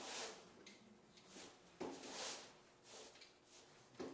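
Sealed plastic pail lids being cut and pried open by hand: faint scraping and clicks of plastic, in a few short bursts.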